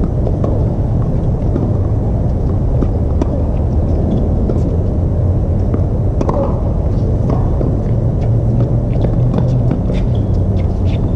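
A loud, steady low rumble with faint sharp knocks of a tennis ball being struck back and forth in a rally.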